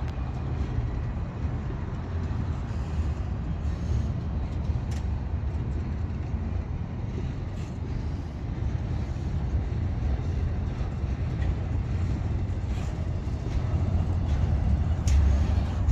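Double-stack intermodal freight cars rolling past: a steady low rumble of steel wheels on rail, with a few light clicks, growing a little louder near the end.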